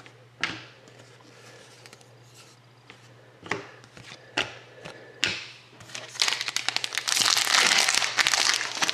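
A few short snaps of trading cards being handled and set down, then from about six seconds in a foil card-pack wrapper crinkling loudly as it is torn open.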